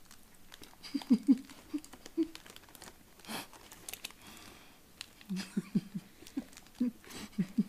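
Stifled giggling in short bursts, about a second in and again several times from about five seconds on, with a brief noisy breath-like sound about three seconds in.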